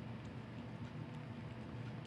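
A cat licking a squeezed-out lickable chicken puree treat: a few faint, irregular small wet clicks of its tongue over a low, steady background hum.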